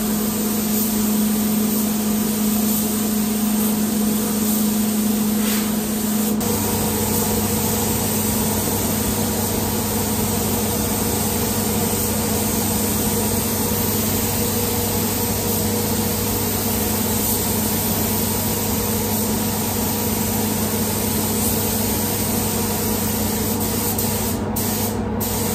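Gravity-feed spray gun hissing steadily as compressed air atomises clear coat lacquer onto a car bonnet, over a steady low hum. The spray cuts out briefly twice near the end as the trigger is let go.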